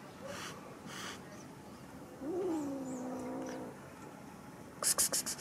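Small tabby kitten hissing defensively: two short hisses at the start, then a drawn-out meow that rises and then falls in pitch about two seconds in, and a quick run of sharp spits near the end, the loudest sound.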